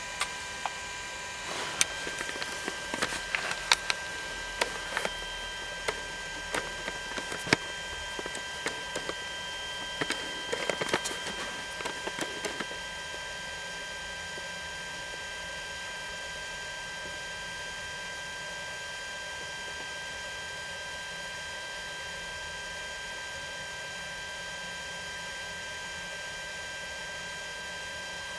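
Steady electrical hum with a few thin, high whining tones, and light clicks and taps of handling on the tablet and remote controller scattered through the first dozen or so seconds, then only the hum.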